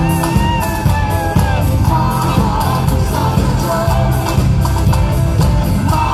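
A live band playing a rock song with singing, electric guitars and drums, heard from the audience in a concert hall.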